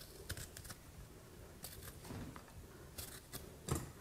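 Faint, short scraping strokes of a small metal utensil peeling the skin off a fresh ginger root, coming irregularly several times.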